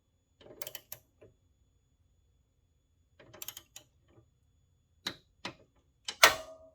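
Torque wrench set to 17.5 foot-pounds ratcheting a bolt in short bursts of clicking, then a few sharp single clicks, the loudest near the end with a brief metallic ring.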